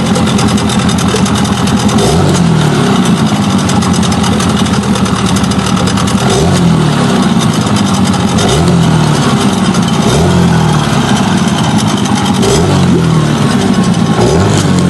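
Hangkai 9.9 hp outboard motor running and being blipped over and over, about every two seconds: the pitch climbs as the throttle opens, then drops back as it is snapped shut. This is a test for the sputtering ('sneezing') the motor showed when revved up and the throttle was suddenly dropped.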